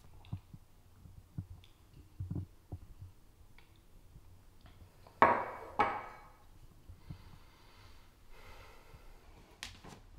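Small knocks and clicks of everyday handling in a quiet room, with two short, loud rushes of noise about half a second apart just past the middle.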